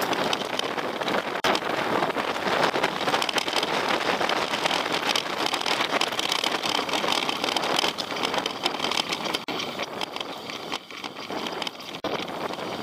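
Mountain bike riding over a rough trail: tyre noise with many small knocks and rattles, and wind on the microphone. It gets somewhat quieter after about eight seconds.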